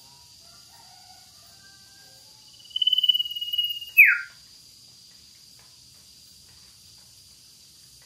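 Common iora (cipoh) singing: a few faint, soft notes, then about three seconds in a loud, long, level whistle held for over a second that ends in a quick falling note.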